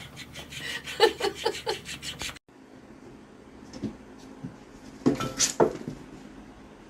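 A person laughing in short bursts, then after a cut a few hard knocks and a clatter about five seconds in as a cat jumps at a small plastic-lidded fish tank on a shelf.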